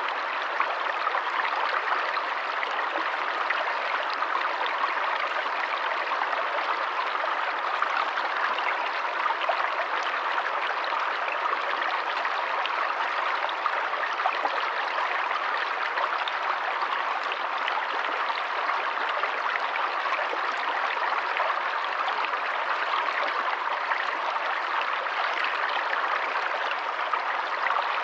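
Forest stream running steadily over rocks, a constant rushing and burbling of water.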